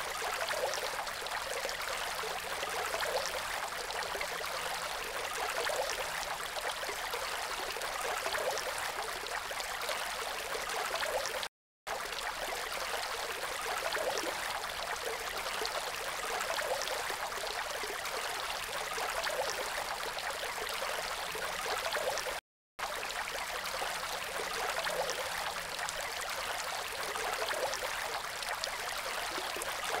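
Water from a fountain jet falling back and splashing steadily into its pool, a continuous even splashing. It cuts out completely twice for a fraction of a second.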